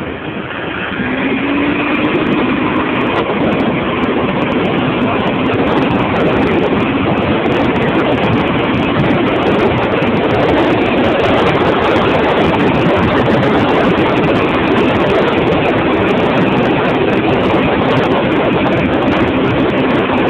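Steady engine and wind noise from riding at speed alongside a Zipp Triad 2 scooter tuned to 80 cc, with a faint engine hum underneath. The noise builds over the first two seconds, then holds.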